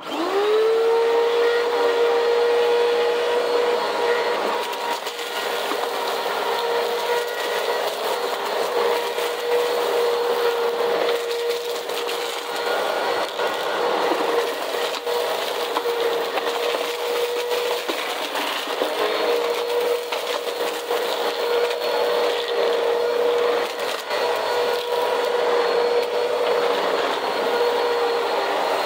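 Bissell CleanView upright vacuum switched on, its motor whine rising to a steady pitch within the first second, then running steadily while it picks up a thin-spread pile of dirt off cement, with grit crackling through the brushroll and hose.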